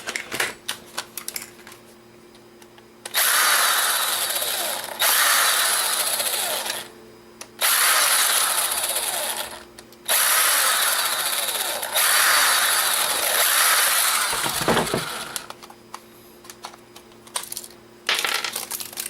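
A small power driver running in five bursts of about two seconds each, backing out the tiny screws that hold the camera together, with light clicks of handling before and after.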